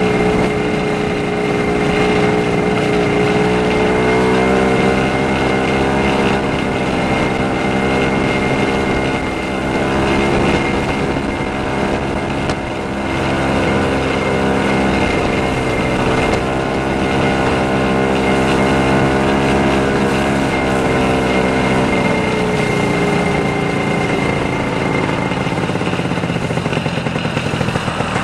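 The big single-cylinder two-stroke engine of a 1970 Arctic Cat Panther 340J snowmobile running under way while it tows a caboose, its pitch gently rising and falling, with a faint steady high whine over it. Near the end the smooth note breaks up into a rougher pulsing as the engine slows.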